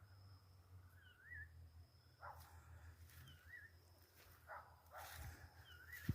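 Faint animal call repeated about every two seconds: a short sharp note followed by a wavering, warbled note, over a faint steady high thin tone.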